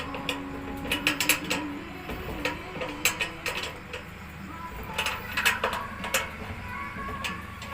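Quick runs of sharp metallic clicks and clinks, about a second in, around three seconds and again around five seconds, from steel cable tray parts and fastening hardware being handled and fitted together.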